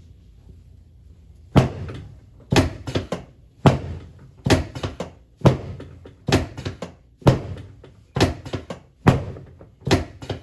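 Chiropractic adjustment worked up the spine from the sacrum: about ten sharp thuds, roughly one a second, each a quick cluster of two or three knocks, starting about a second and a half in.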